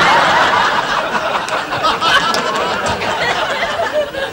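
Studio audience laughing at a punchline, loudest at first and easing off after about a second.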